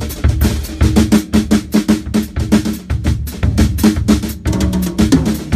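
Acoustic drum kit played in a fast groove: rapid snare strokes over heavy bass drum kicks, with a quick run of drum strokes near the end.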